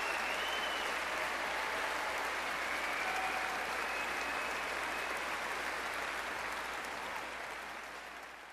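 Large concert audience applauding, fading out near the end.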